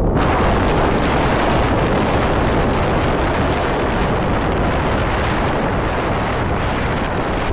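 Steady, loud rushing of wind buffeting the microphone, mixed with loose volcanic scree crunching and sliding under hikers' feet.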